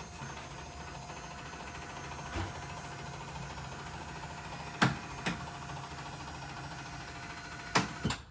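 Electric lift motor lowering a KZ Venom toy hauler's power fold-down garage chairs, running with a steady hum. A few sharp knocks come from the mechanism, the loudest about five seconds in and again near the end. The motor cuts off suddenly at the end as the chairs reach the bottom.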